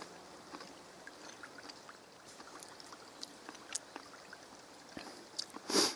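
Faint steady trickling hiss with scattered soft clicks and ticks, and one short, louder rush of noise near the end.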